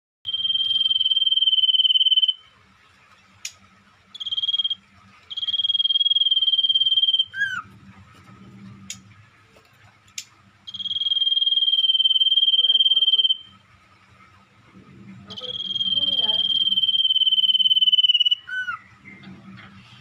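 A caged sirpu songbird singing long, high rolling trills of about two to three seconds each, five in all, one of them short, with pauses between. Some trills end in a quick falling note. A faint steady tone and a low hum run underneath.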